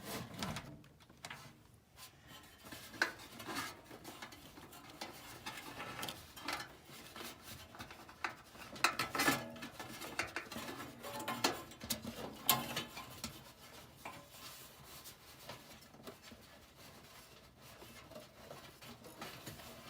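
Hand work on a gas furnace's blower assembly: irregular clinks, knocks and scrapes of metal parts being handled and fitted, with a few sharper knocks around the middle.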